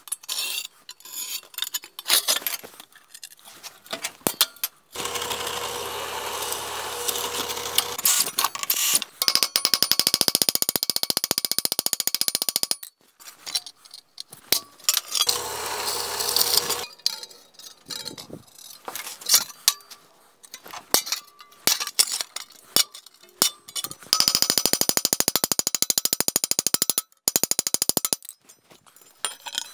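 Hand hammer striking steel rivets over an anvil, peening the rivet tails to set 3/16-inch round-head rivets through a 14-gauge sheet-steel shovel blade. Single strikes alternate with runs of rapid, light taps.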